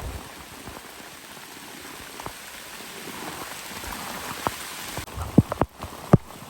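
Heavy rain falling on a camping tent shelter, a steady hiss with separate drops striking the fabric. Larger drops land more often from about five seconds in.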